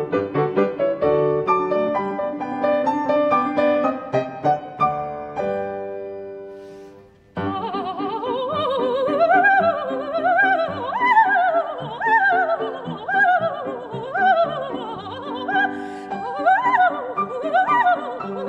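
A grand piano plays a solo phrase that dies away on a held chord. Then, after an abrupt cut, a coloratura soprano sings fast runs that sweep up and down over and over, with piano accompaniment.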